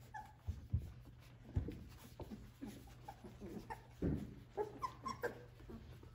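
Three-week-old Australian Labradoodle puppies whimpering and squeaking in many short, high calls. A few dull thumps break in, the loudest about a second and a half in and again about four seconds in.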